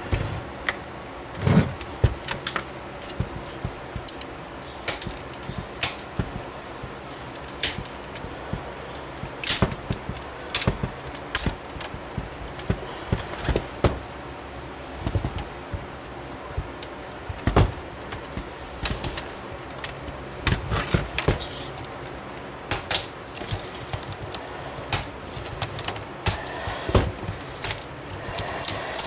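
Plastic screen bezel of an HP EliteBook 8570p laptop being pried off with a small flathead screwdriver: irregular sharp clicks and snaps as its clips pop loose, with handling scrapes on the plastic.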